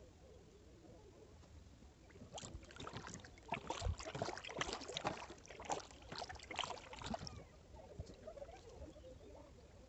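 Kayak paddle dipping into calm water, with splashes and drips for about five seconds in the middle, then quiet lapping.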